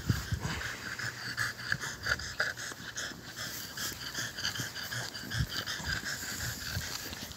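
French bulldog puppy panting close by: rapid, irregular short breaths, several a second.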